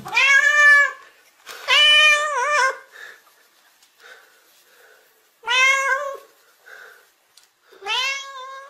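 Black-and-white domestic cat meowing at close range: four long, loud meows, each sliding up in pitch at its start, spaced a couple of seconds apart.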